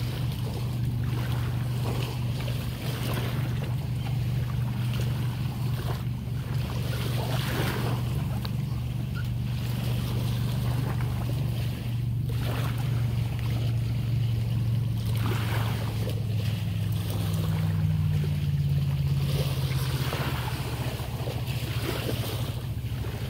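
Wind on the microphone and small waves lapping at the shore, over a steady low hum that shifts slightly in pitch about two-thirds of the way through.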